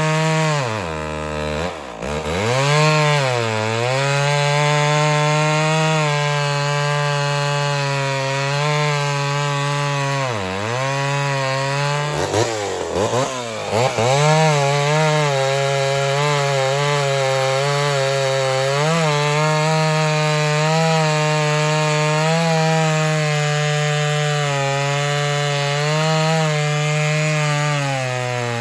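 Two-stroke chainsaw running at full throttle as it cuts through a log. The engine pitch drops several times as the saw bogs in the cut and then picks back up, most deeply in the first two seconds and again between about twelve and fourteen seconds.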